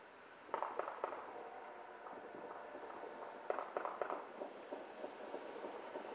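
Two quick strings of sharp pops from New Year's celebration bangs in the neighbourhood, the first about half a second in and the second about three seconds later.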